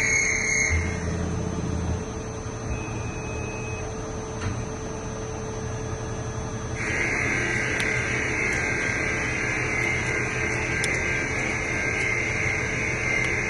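Lathe running with a steady hum. A higher-pitched whine stops about a second in and comes back about seven seconds in, with a few light ticks.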